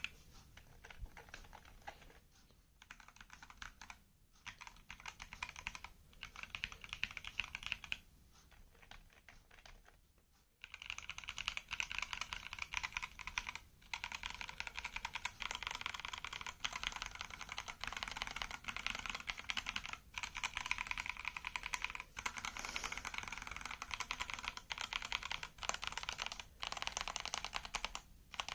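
Fast, continuous typing on a computer keyboard, many keystrokes a second. It is fairly quiet with short pauses at first, then becomes much louder and denser from about ten seconds in.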